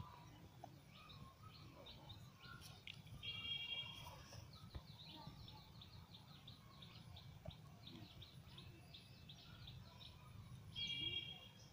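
Small birds chirping faintly: a quick run of short chirps through the middle, and twice a brief steady-pitched call, about three seconds in and again near the end, over a low rumble.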